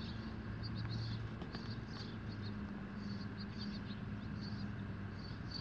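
Outdoor ambience: small birds chirping again and again in short, high calls over a steady low hum.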